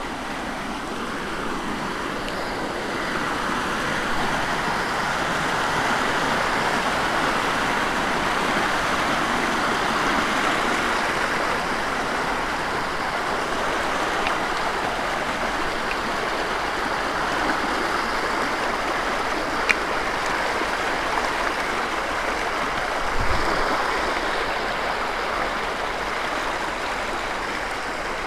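Rushing water of a small rocky mountain stream tumbling down a narrow channel: a steady, even rush of white water.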